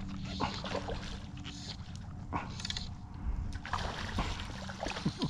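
Water splashing and sloshing around a canoe, with scattered knocks, the splashing busiest near the end.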